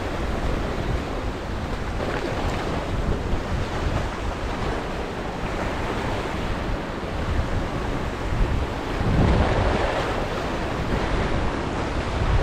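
Ocean surf washing and breaking against shoreline rocks, a steady rushing with a louder wash about nine seconds in, and wind buffeting the microphone.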